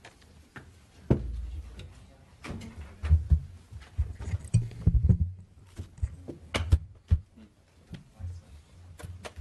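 Scattered thumps, knocks and rustling as people settle in at a hearing table, setting down papers and moving chairs, with dull bumps carried through the table microphones. Faint murmured voices sit underneath.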